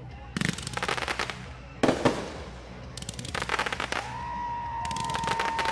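Fireworks going off in four quick clusters of crackling bangs, the loudest about two seconds in. A steady high whistle starts about four seconds in.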